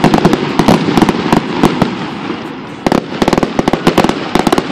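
Fireworks crackling in two dense runs of rapid, sharp pops. The first starts just before and fades about two seconds in; the second starts about three seconds in.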